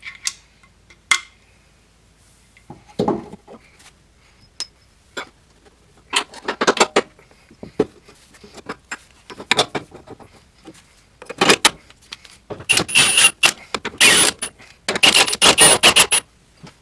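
Metal clinks, knocks and scrapes of tools and suspension parts as a new front control arm is fitted. The sounds come in scattered bursts that grow busier and louder in the second half.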